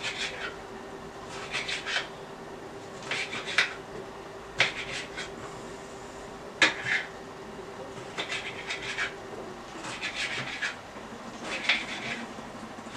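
Knife cutting tomato strips in half on a cutting board, in short runs of quick taps every second or two.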